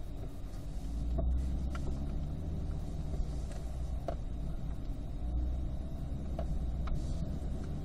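2020 Corvette C8's mid-mounted V8 running at low speed, a steady low rumble with road noise heard inside the cabin.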